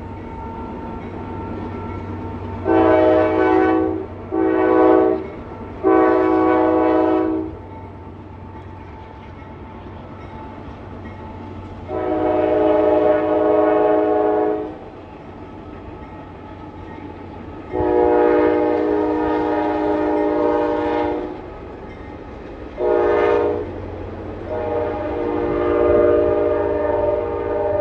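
Freight locomotive's multi-chime air horn sounding over the steady rumble of a passing train. It gives three blasts early (long, short, long), then the long-long-short-long pattern of the grade-crossing warning, the last blast still sounding at the end.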